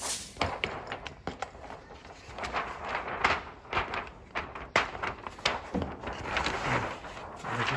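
Irregular clicks, knocks and rubbing from handling a copier's transfer belt unit, as the belt is worked down over its metal roller frame.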